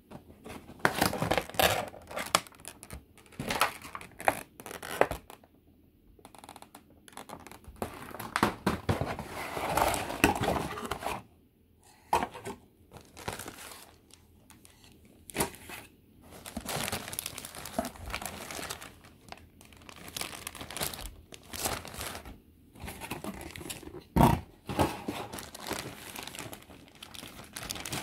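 Clear plastic bags around a plastic model kit's parts sprues crinkling and rustling in irregular bursts as the sprues are handled, with a sharp knock late on.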